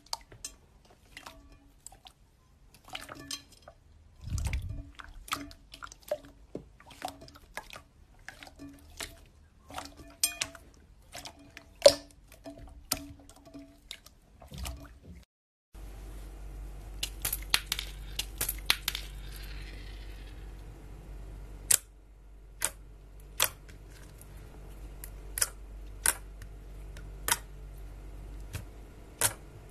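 Hands squeezing and stretching clear, wet slime, making sharp irregular sticky pops and squelching clicks, several a second. About halfway through the sound changes to a second slime being poked and pressed, with a steady low hum under the pops.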